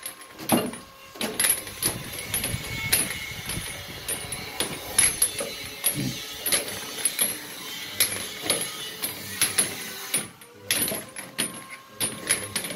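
Three-quarter-inch pipe elbows knocking and clinking together as they are handled and counted out by hand, in irregular clicks several times a second.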